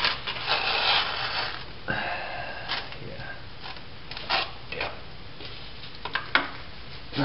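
An exhaust manifold being worked into position by hand against the cylinder head, its gasket and a stud. Metal scrapes and rubs, with several sharp knocks in the second half.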